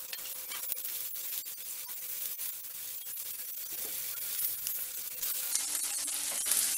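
Shallots, garlic and turkey berries frying in sesame oil in a clay pot: a steady sizzle full of fine crackling.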